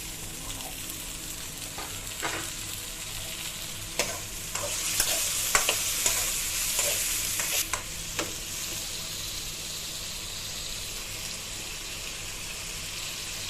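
Food frying and sizzling in a pan, stirred with a spoon that clinks against the pan several times. The sizzle swells for a few seconds around the middle.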